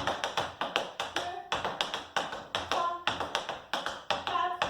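Metal taps on tap shoes striking the floor in a quick, rhythmic run of tap-dance time steps, several sharp clicks a second.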